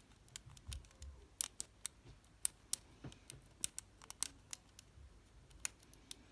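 Lock pick working the sliders inside an OnGuard Beast padlock under tension from a Z-bar: irregular sharp metallic clicks and ticks, a few a second, as the hook feels for binding sliders and sets them.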